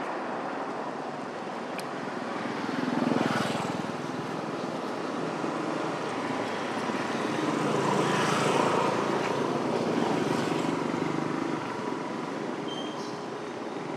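Motor vehicles passing, their engine noise swelling and fading twice: briefly about three seconds in, then longer from about halfway to near the end, over a steady background hiss.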